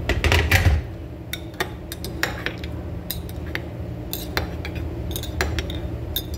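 Metal spoon stirring spice into hot water in a ceramic mug, clinking against the sides in irregular taps. It opens with a short, louder rush of noise in the first second.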